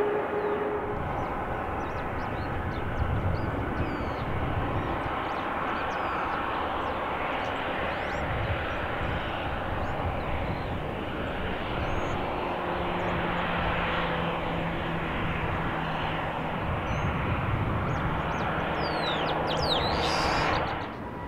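Jet airliner engines running with a steady noise, a faint steady hum joining about halfway through; the sound drops off sharply just before the end.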